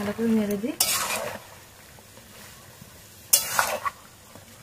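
A spatula scraping and stirring chicken pieces in a wok with a faint sizzle underneath, in two bursts: about a second in and again just after three seconds. This is chicken kosha being stir-fried in its spice paste.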